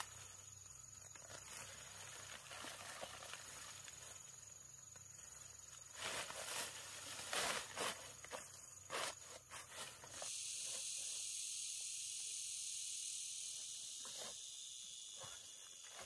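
Rustling and footsteps, with a cluster of louder rustles and knocks in the middle. About ten seconds in, a steady high-pitched insect buzz starts and holds for a few seconds.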